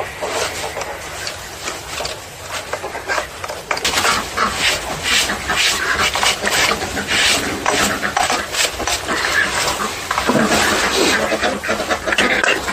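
Scraping and scrubbing packed sawdust and oily grime off a Stihl MS 180 chainsaw by hand. A metal tool scrapes around the clutch drum, then rapid rubbing strokes scrub it from about four seconds in. Near the end there is scraping inside the plastic sprocket cover.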